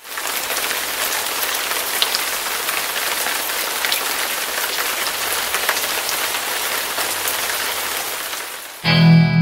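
Steady rain falling, an even hiss of patter with scattered sharp drop ticks. It fades out near the end as an electric guitar chord comes in.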